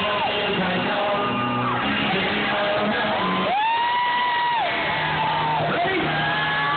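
A rock band playing live, heard from the audience: a male singer holds long sung notes over electric guitar, with shouts from the crowd mixed in.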